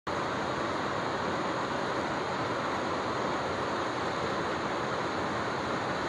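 Waterfall: white water cascading down a narrow rocky gorge, a steady, unbroken rush.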